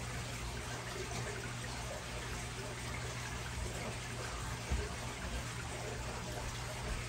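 Steady trickle and splash of aquarium water running, over a low steady hum from the tank equipment. A single soft thump just under five seconds in.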